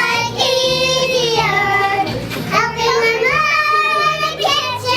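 Children singing long, held notes of a song over a steady backing track.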